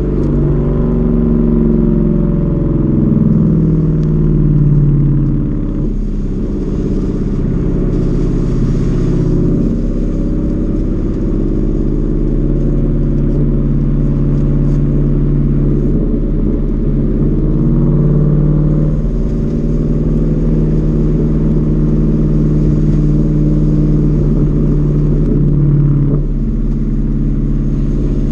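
Ford Mustang's engine heard from inside the cabin while driven on track, its pitch rising and falling as it accelerates and lifts, with a drop in loudness about six seconds in and again near the end.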